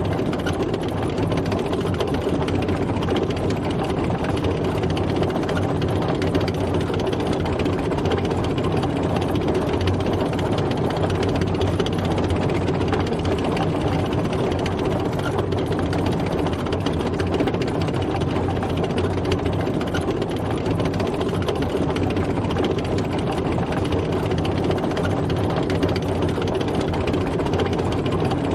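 Tank driving: a heavy engine running steadily under a fast, continuous clatter of its tracks.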